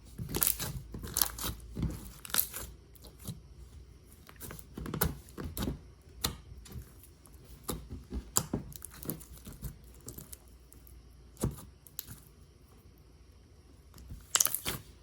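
Hands squishing and stretching a watermelon slime with beads and jelly cubes mixed in, giving irregular sticky crackles and clicks.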